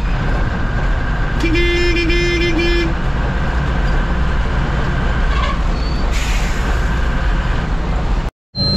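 Bus engine running with steady road and traffic noise heard from inside the cab. A horn toots in a few quick pulses from about a second and a half in, lasting about a second and a half.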